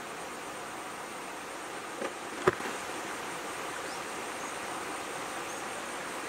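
Steady outdoor background with insects buzzing, broken by one sharp knock about two and a half seconds in and a softer one just before it.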